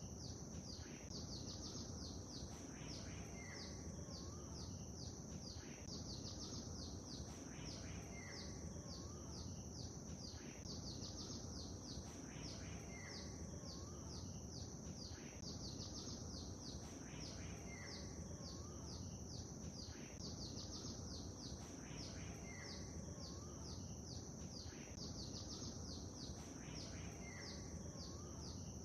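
Small birds chirping rapidly and high-pitched over a steady low rush of calm lake water. A group of calls recurs about every five seconds.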